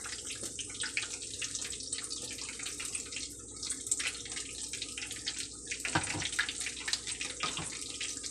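Egg rolls deep-frying in hot oil in a cast-iron skillet: the oil sizzles and crackles steadily. A couple of soft knocks from the utensils against the pan come near the end.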